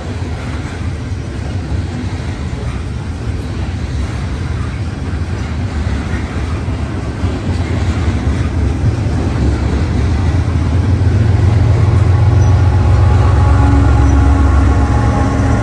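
Freight cars of a passing train rolling by, with a steady rumble of wheels on rail. The rumble grows louder near the end as a Norfolk Southern diesel locomotive at the rear of the train passes with its engine running.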